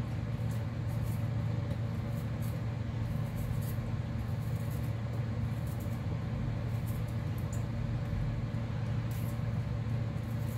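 A steady low machine hum, with faint, irregular scratching of a kitchen knife scraping the skin off a piece of fresh ginger.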